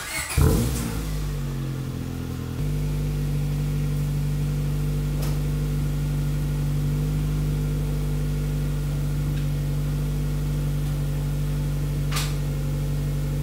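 Honda Integra DC2 Type R's 1.8-litre B18C four-cylinder engine starting, flaring briefly as it catches, then settling into a steady idle. The idle note changes and steadies about two and a half seconds in.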